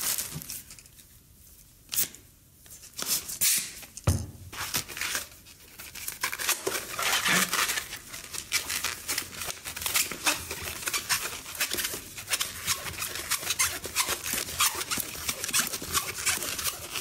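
Handling noise of latex twisting balloons and their plastic bag: a few crinkles at first, then from about four seconds a dense, irregular crackling and rubbing as a green 350 balloon is worked around a pole.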